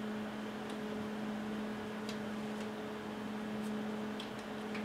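A few faint, light clicks of fingers pressing the retaining tabs of a MacBook Pro's RAM module, over a steady background hum.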